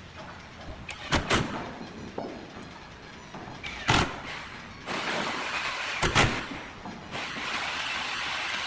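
Several sharp wooden knocks and thuds from kitchen cabinet parts being fitted or shut: two close together just after a second in, one at about four seconds, two more about six seconds in. A steady hissing noise runs under them from about five seconds in.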